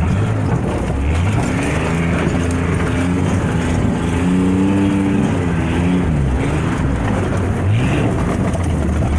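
Logging truck's engine under load while driving in four-wheel drive, revving up and easing off several times: the pitch climbs about a second in, peaks around the middle, drops, then climbs again twice near the end.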